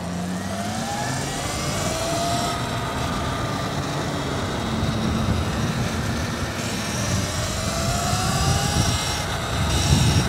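Riding noise from an electric ride-on vehicle in traffic: a steady low rush of road and wind noise, with a thin motor whine that rises in pitch twice as the vehicle speeds up.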